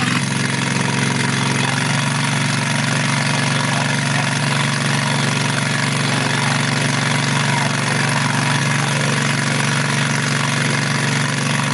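A large engine running steadily, a constant low hum with a broad hiss over it.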